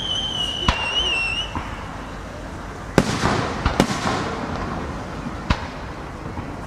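Festival fireworks going off: a high whistle falling slightly in pitch fades out in the first second and a half, then sharp bangs of bursting shells, the strongest about three and four seconds in, followed by crackling.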